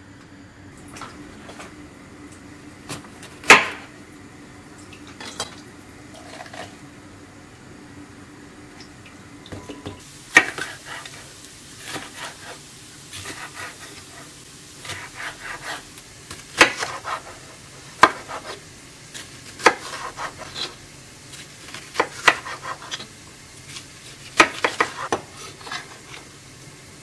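Kitchen knife chopping a red bell pepper on a wooden cutting board: irregular sharp knocks of the blade hitting the board, in quick runs through the second half. A single loud, sharp knock comes a few seconds in.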